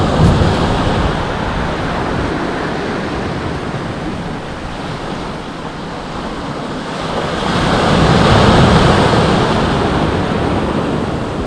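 Ocean surf breaking on a sandy beach: a steady rush of waves that swells louder about eight seconds in, then eases.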